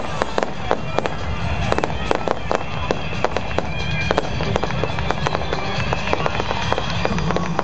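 Fireworks going off in rapid succession, many sharp bangs and crackles a second over a steady low rumble, with music playing underneath.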